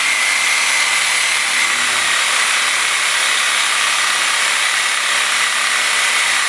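DeWalt DW303M reciprocating saw running steadily with a constant high motor whine, cutting through a whole turkey.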